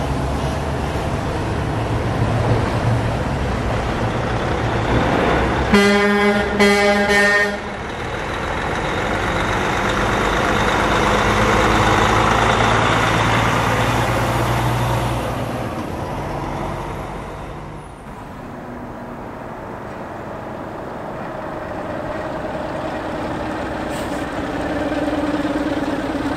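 Volvo FH semi-trailer truck driving past with its diesel engine running, giving two short horn blasts about six seconds in, then a loud swell of engine and tyre noise as it passes close. After a cut, a second semi-trailer truck approaches, its engine sound rising in pitch near the end.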